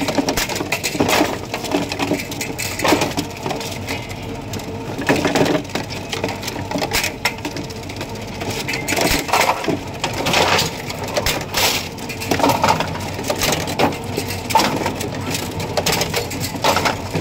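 Half-scale bowling pinsetter running through its cycle: a steady mechanical clatter of metal linkages, spotting cups and pins, with loud sharp clacks every one to three seconds.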